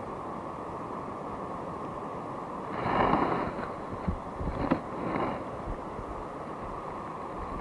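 Steady wind noise on the microphone over open shallow sea, with a few short louder sounds about three and five seconds in and a sharp click between them.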